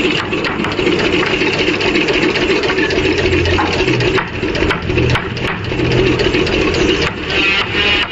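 A power tool's motor running steadily, with scattered light ticks and knocks.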